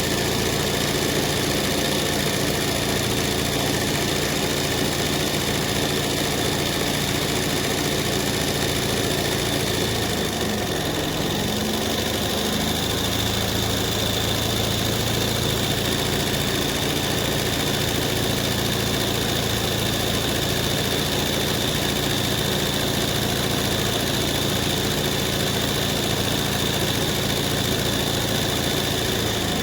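Embroidery machine running steadily while stitching a zari (kasida) design: a continuous mechanical hum with a steady high whine. The low hum shifts briefly about ten seconds in, then settles again.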